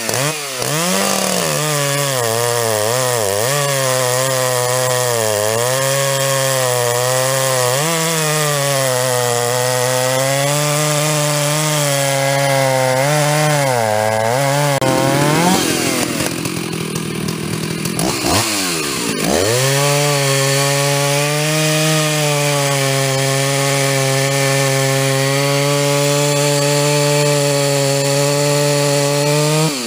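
Big-bore two-stroke Jonsered chainsaw cutting through a log at full throttle, its engine pitch wavering as the chain bites and the saw bogs and recovers. About halfway through it revs up as it clears the cut and drops away, then settles back to a steady pitch as it bites into another log.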